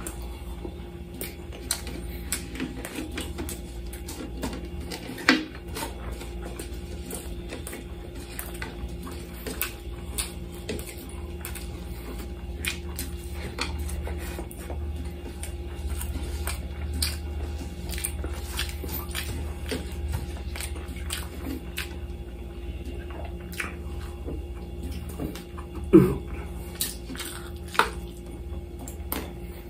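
Mukbang eating sounds: chewing and lip-smacking clicks as lamb chops and rice are eaten by hand, with gloved fingers working the food on a glass plate. A steady low hum sits underneath, and a few sharper knocks stand out, the loudest near the end.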